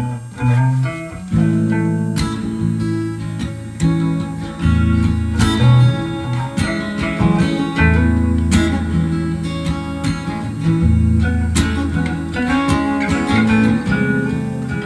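Acoustic guitar music: plucked and strummed chords over a steady bass line.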